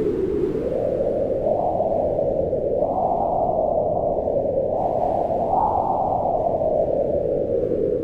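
Wind howling across a mountaintop: a steady rush of noise whose pitch swells up and eases back down several times.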